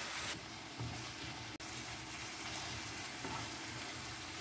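Sliced onions sizzling steadily in hot oil in a pan while being sautéed until soft, stirred now and then with a wooden spatula.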